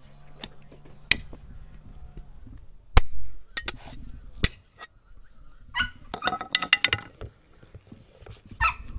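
A dog whimpering in short, high squeaks, with several sharp knocks, the loudest about three seconds in, and a quick clatter of clicks near the middle.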